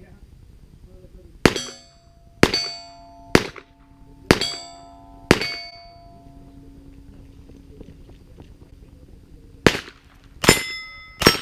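Pistol shots at steel targets, each shot followed by the ring of a struck steel plate. Five shots come about a second apart, then after a pause of about four seconds three more shots and rings follow in quick succession.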